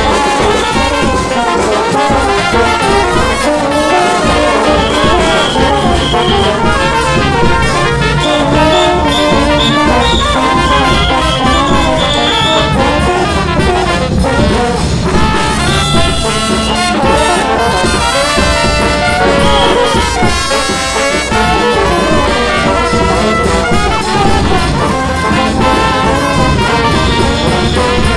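Brass band playing a second-line tune, trumpets and trombones together with a steady beat underneath.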